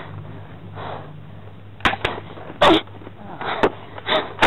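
A person's short, sharp breaths or gasps, five or so at uneven spacing in the second half, over a low steady hum.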